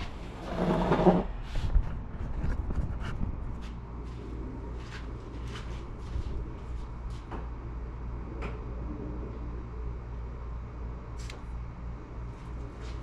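Light clicks and knocks of hand work on the car, the battery terminal being connected, over a steady low hum, with a brief louder rasp about half a second in.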